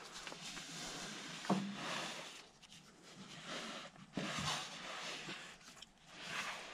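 Soft rustling and scraping of a person squeezing through a narrow gap between stone blocks, clothing and hands rubbing against the rock, in several short bursts, with one small knock about a second and a half in.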